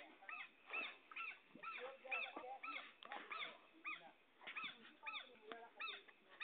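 An animal calling over and over, faint: short high notes that rise and fall in pitch, two or three a second.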